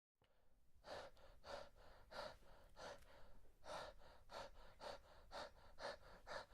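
Faint, quick breathing like panting: a run of short breaths, nearly two a second.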